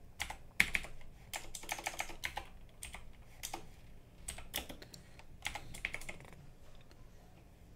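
Typing on a computer keyboard: irregular keystrokes in short runs with pauses between them, thinning out near the end.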